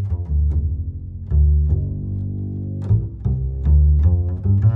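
Background music with a deep bass line of sustained low notes and sharp plucked note starts.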